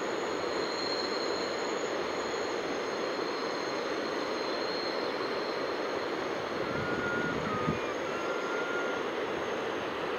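Freight train rolling through the valley below, heard as a steady distant rumble, with faint steady high tones over it and a small thump about three-quarters of the way in.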